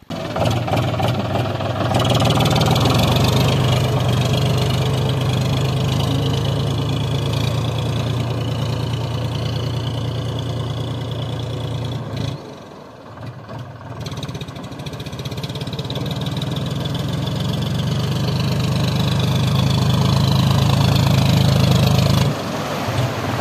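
John Deere tractor's diesel engine running steadily. After a brief dip about halfway, the tractor wades through floodwater and its engine grows louder as it comes closer, cutting off abruptly near the end.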